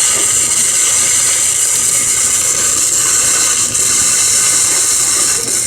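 Welding arc burning steadily on pipe, a continuous loud hissing sizzle.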